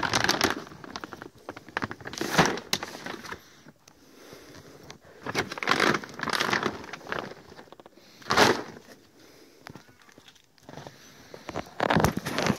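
Large plastic sacks of dry cat food crinkling and rustling as they are handled and moved, in several separate bursts with short pauses between.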